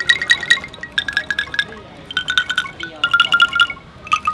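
A bamboo angklung shaken one tube-frame at a time, each giving a fast rattle on a single pitched note. Five notes in turn, each a step lower than the one before.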